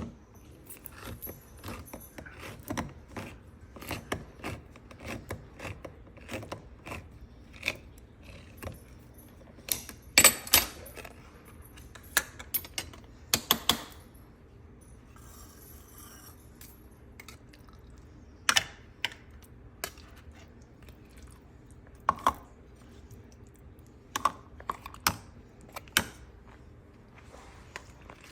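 Irregular clinks and taps of metal kitchen utensils against dishes, some ringing briefly, with a few louder knocks near the middle.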